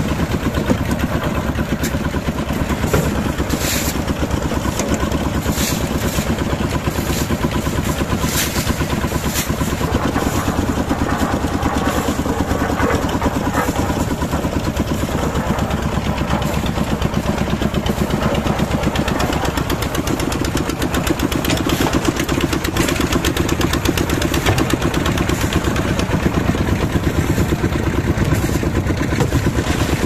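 Concrete mixer machine running steadily, its engine giving a fast, even beat. Now and then gravel and cement tipped from wheelbarrows into its loading skip rattle and scrape in over it.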